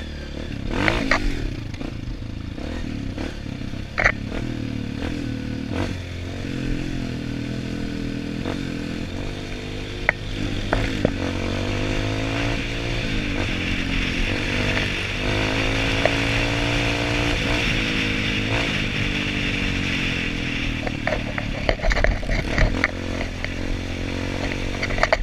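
Off-road trail motorcycle engine being ridden, its pitch rising and falling with the throttle, with sharp knocks and clatter now and then.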